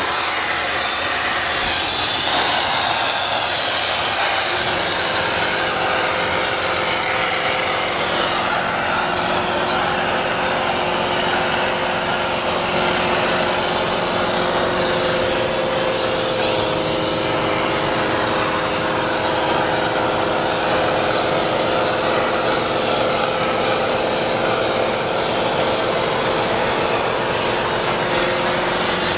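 Spray foam gun hissing steadily as it sprays insulation foam into wall cavities, with a steady machine hum underneath from about five seconds in.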